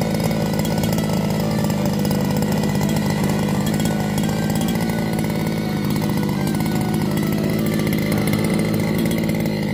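Small two-stroke petrol engine of a large-scale RC car running steadily at an unchanging speed.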